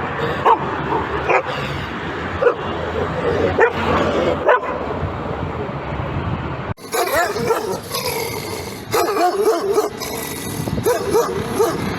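Dogs barking in two separate clips: first single sharp barks about a second apart, then after a sudden cut a quicker, busier run of short yipping barks.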